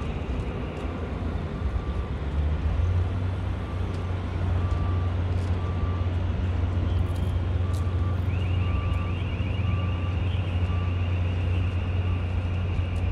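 Heavy truck engine running with a steady low rumble, its reversing beeper sounding a short beep roughly twice a second.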